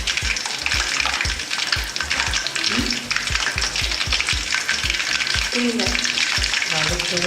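Masala-coated quail deep-frying in hot oil: a dense, steady sizzle. A low, regular thudding beat, about five a second, runs underneath.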